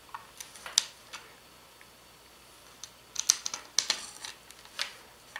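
Light clicks and taps of small plastic parts, screws and nuts being handled and fitted against a laser-cut plate: a few in the first second, then a busier run from about three to five seconds in.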